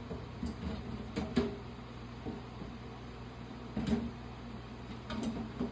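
Scattered light knocks and clicks from handling a desktop computer case, over a steady low hum.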